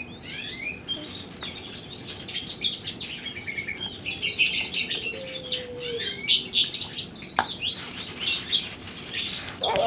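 Young spotted dove giving rapid, high begging chirps, the feeding response of a hand-fed bird. A single click sounds late on.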